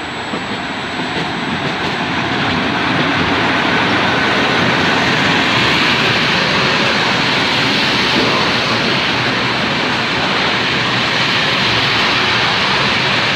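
Freight train of high-sided open wagons, hauled by an E.655 electric locomotive, running past at speed. There is a steady noise of wheels on rails that grows louder over the first three seconds as the wagons come alongside, then holds.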